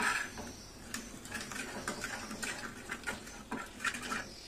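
Steel spoon stirring crushed red chili flakes in hot ghee in a metal frying pan: light, irregular clicks and scrapes of the spoon on the pan, more frequent near the end.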